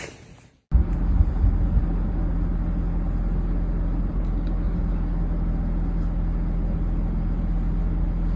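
Motor vehicle running: a steady low rumble of engine and road noise with a constant low hum, starting abruptly after a cut about a second in.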